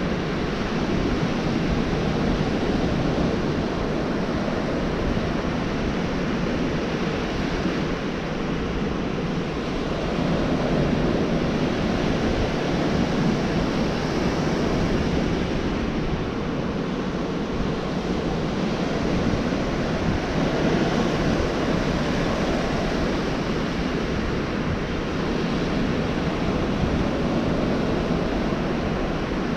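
Ocean surf breaking and washing up a beach: a steady rushing wash that swells and eases every few seconds.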